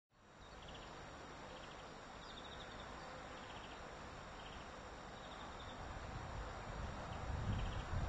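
Outdoor background sound: a steady hiss with short, high chirps that repeat about once a second. A low rumble grows louder toward the end.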